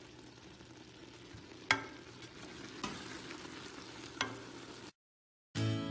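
Wooden spatula stirring hot chopped plums and pectin in a stainless steel stockpot, over a low hiss, knocking against the pot's side three times. Near the end the sound cuts out for a moment and acoustic guitar music begins.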